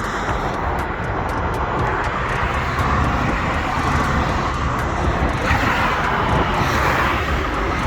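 Ford Transit Connect diesel van on the move: steady engine, tyre and wind noise, swelling briefly between about five and seven seconds in. The van is being driven to try to burn off a clogged diesel particulate filter.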